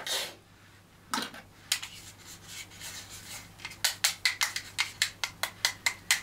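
Small hard plastic clicks and taps as the YSL Rouge Sur Mesure lip-colour device and its little magnetic lip brush are handled, the brush being fitted to the back of the device. A few scattered clicks, then a quick run of about five a second in the second half.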